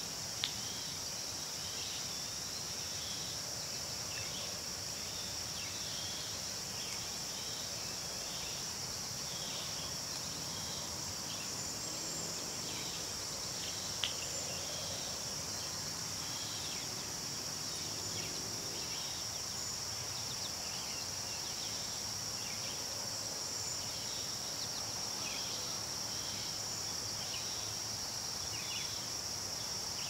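A steady, high-pitched chorus of insects with many short, high chirps scattered over it. Two sharp clicks stand out, one right at the start and one about halfway through.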